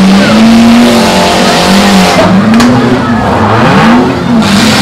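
Several small demolition-derby car engines revving hard, their pitch climbing and falling again and again as the cars push against each other, with wheels spinning on the dirt. A single sharp bang of a car hitting another about two and a half seconds in.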